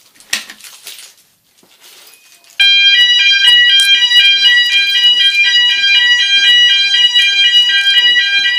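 A click, then about two and a half seconds in a fire alarm system's sounders start all at once, set off from a manual call point. They sound a loud electronic alarm of rapidly alternating high tones that keeps going.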